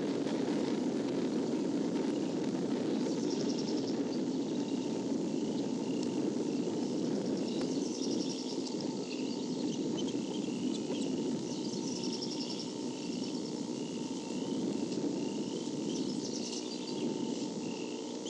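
A faint, rhythmic high squeak repeats about one and a half times a second from around six seconds in, over a steady low rumble of background noise. The uploader suspects it is a bald eaglet wheezing as it breathes in the nest.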